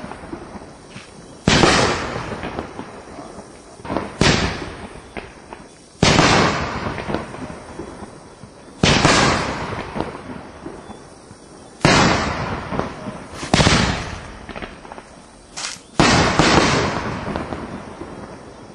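Perfect Round P5409 nine-shot fireworks cake firing aerial shells one after another: a sharp bang every two to three seconds, each trailing off over a second or two, about eight in all.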